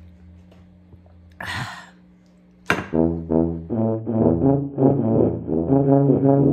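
A faint low hum, then a short whoosh about a second and a half in; from about three seconds in a brass-instrument tune starts loudly, note after note.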